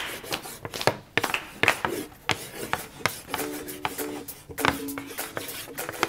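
Scattered, irregular hand claps and light taps from a small audience, then soft music with a few repeated low notes begins about three seconds in.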